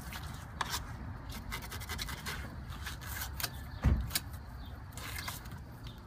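Fillet knife cutting through a fish on a metal cleaning table: a run of short crisp slicing and scraping sounds over a low steady rumble, with one dull thump about two-thirds of the way through.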